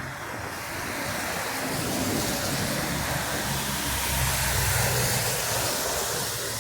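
Vehicle passing on a rain-soaked street: a loud rushing hiss of tyres through water that swells over a couple of seconds, with a low engine rumble at its peak, then fades near the end.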